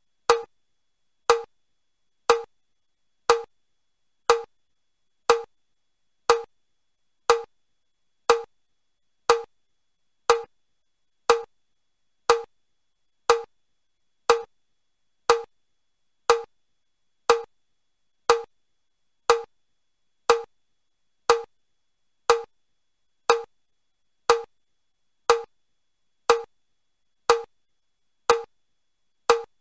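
Metronome clicking steadily at about one beat a second, the level 1 pace of the Chester step test, each click marking one step movement (up, up, down, down).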